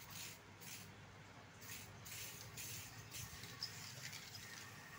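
Aerosol spray-paint can hissing in a string of short bursts as the nozzle is pressed and released.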